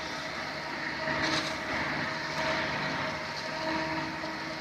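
Wire mesh belt shot blasting machine running: a steady mechanical hum with a hiss over it.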